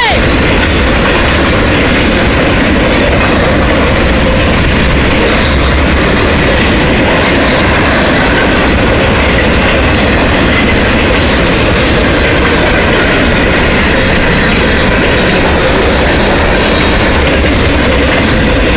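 Union Pacific freight train rolling past close by, its cars' wheels clattering steadily on the rails.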